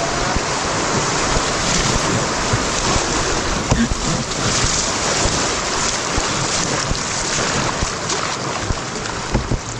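Rushing whitewater of a shallow river rapid around a moving canoe, a steady dense wash with wind buffeting the microphone in low thumps.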